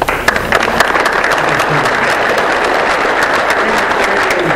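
Audience applauding: many people clapping at once. The clapping starts suddenly and keeps a steady level.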